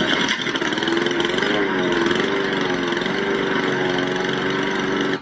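Small petrol lawn mower engine running steadily, with a slight wavering in pitch; it starts abruptly and cuts off suddenly at the end.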